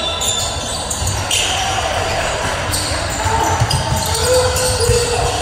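Basketball game in play: the ball bouncing on the court with scattered sharp knocks, amid players' voices and a low rumble from the hall.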